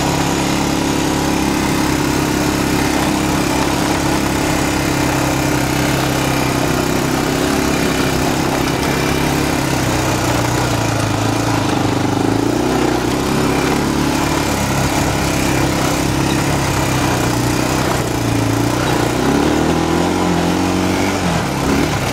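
ATV engine running under way, steady for most of the time, with its pitch wavering up and down about halfway through and again near the end, over a constant rush of noise.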